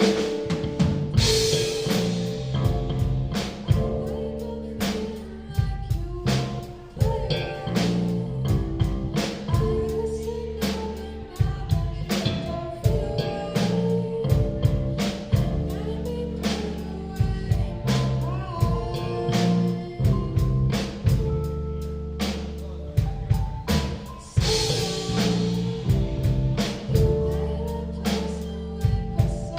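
Live rock band playing, drum kit prominent over steady pitched instrument parts, with two cymbal crashes, one about a second in and one near the end.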